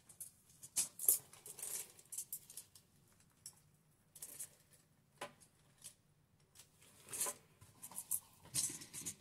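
Hands fetching and handling a paintbrush: scattered light clicks and short bursts of rustling, on and off.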